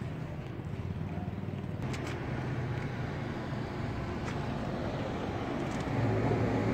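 Street traffic: cars passing on a road, a steady hum of engines and tyres that grows louder near the end.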